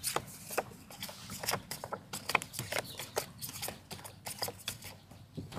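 Playing cards being handled and laid down on a cloth over a wooden platform: an irregular run of light clicks and flicks, several a second.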